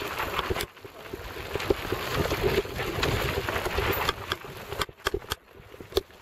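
Mountain bike descending a dirt forest trail: tyres rolling over the ground and the bike rattling, with many sharp clicks and knocks over bumps, under wind rush on the microphone. The rush swells in the middle and eases off near the end.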